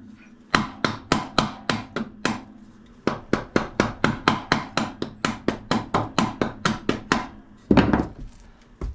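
Hammer blows on a block of wood held against the end of a motorcycle rear axle, driving the axle out: a fast run of sharp strikes, about four a second, with a brief pause early on, then a louder, longer clatter near the end.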